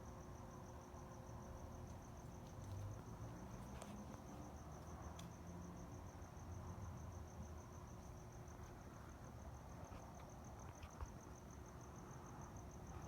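A cricket chirping steadily, a faint high pulse repeating rapidly and evenly, over a low background rumble with a few soft clicks.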